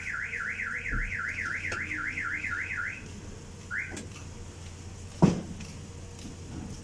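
Electronic vehicle alarm siren sounding a fast rising whoop, about four sweeps a second for roughly three seconds, then one short sweep. A single loud thump follows about five seconds in.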